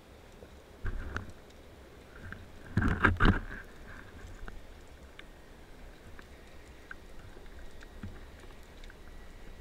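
Muffled knocks and scrapes heard underwater through a camera housing as a diver's gloved hand and speargun work against the rock, grabbing an octopus from its den. The loudest cluster of bumps comes about three seconds in, over a low steady underwater hiss.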